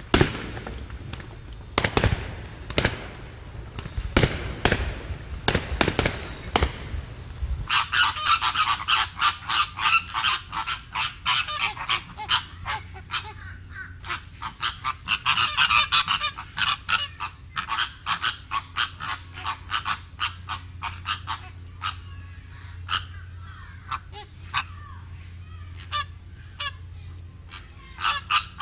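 Fireworks bursts, a series of sharp bangs, for the first several seconds. Then, from a sudden cut, a flock of flamingos honking: many overlapping calls.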